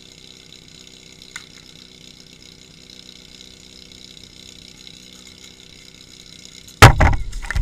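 Small engine of a portable fire pump idling steadily. Near the end, loud sudden splashing and knocking as the suction hoses go into the water tank.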